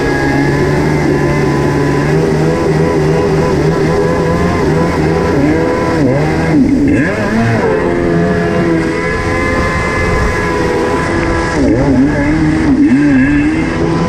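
1987 Kawasaki X2 jet ski's two-stroke twin engine running under way, with water rushing past the hull. The revs dip and climb back twice, about six seconds in and again near the end.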